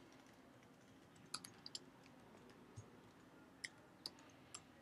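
Faint computer keyboard typing: a handful of soft key clicks at irregular spacing, in near silence.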